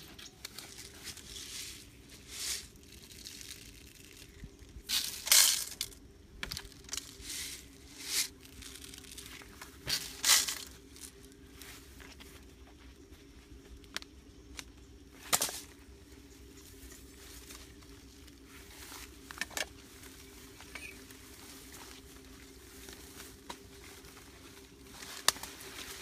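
Intermittent rustling and brushing as the blue plastic water-pipe bird trap and the leaves around it are handled and grain is spread on it: short scratchy noises every few seconds, the loudest about five, ten and fifteen seconds in.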